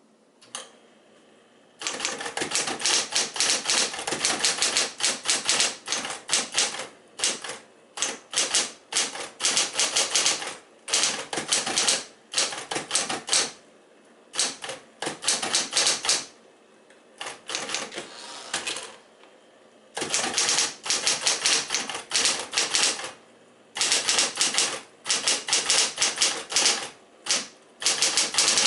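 Smith-Corona Electra 120 electric typewriter typing: fast runs of keystrokes in bursts separated by short pauses, starting about two seconds in.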